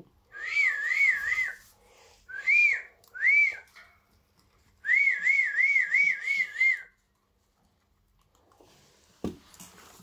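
Guinea pigs wheeking: high, whistle-like squeals that rise and fall in quick succession, first a run of calls, then two single calls, then another run. This is their excited call when they expect food. A brief knock comes near the end.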